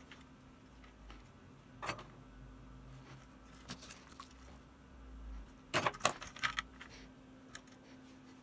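Small clicks, taps and rattles of a wah pedal's wires, circuit board and metal housing being handled during rewiring, with a cluster of sharper clicks about six seconds in, over a faint steady hum.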